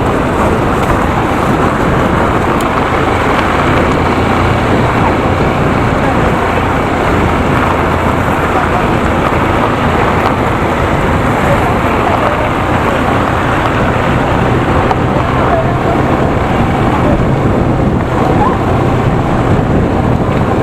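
Steady wind rush on the microphone of a moving motorcycle, with the bike's engine running underneath as it rides along.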